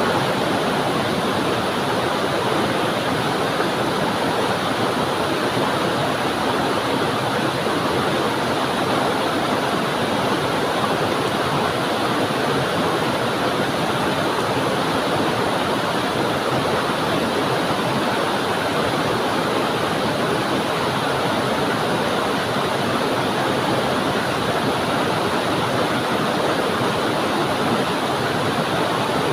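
Small waterfall pouring onto rocks and flowing away: a steady, even rush of water.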